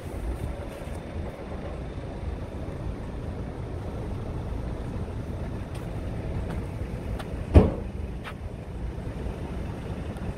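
Wind buffeting the microphone, an uneven low noise, with one sharp knock about seven and a half seconds in.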